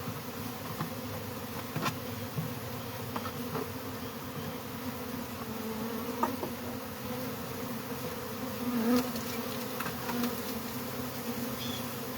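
A large number of honeybees buzzing together in a steady hum, the colony stirred up while its hive is being removed. A few faint ticks sound over it.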